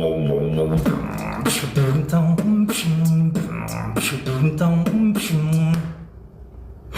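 Beatboxing: one voice making drum hits, sharp kick and snare sounds, over a hummed bass tone that steps between a few pitches. It drops to a quieter stretch near the end.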